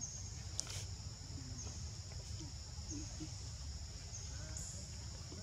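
Forest ambience: a steady high insect drone, with a short high chirp repeating about every second and a half over a low rumble, and a single sharp click under a second in.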